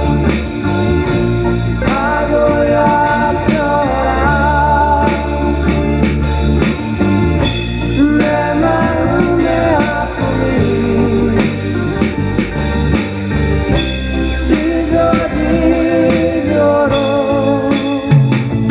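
Band music with a drum kit, guitar and a wavering lead melody line over steady bass, a drummer playing along to a late-1970s Korean pop-rock song.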